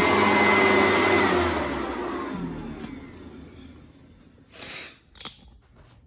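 Sanitaire commercial upright vacuum running, then switched off about a second in, its motor winding down with a falling whine over the next few seconds. Two brief soft noises near the end.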